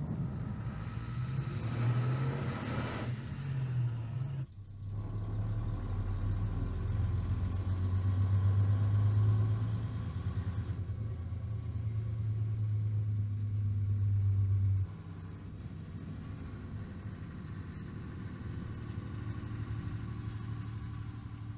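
Heavy tow vehicle's engine running with a steady low drone. It breaks off sharply for a moment about four and a half seconds in, then runs on and gets quieter about fifteen seconds in.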